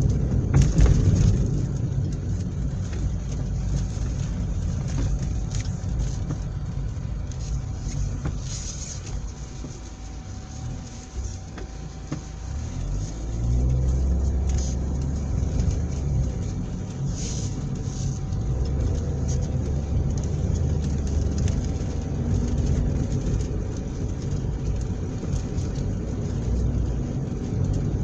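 Car engine and road noise heard while driving, steady and low; it eases off for a couple of seconds near the middle, then grows louder again as the car picks up speed.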